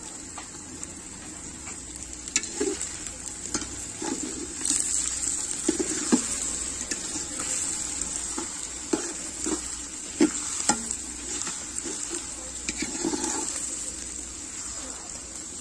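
Sliced onions frying in oil in a large aluminium pot, a steady sizzle, while a metal spatula stirs them with irregular scrapes and sharp clicks against the pot.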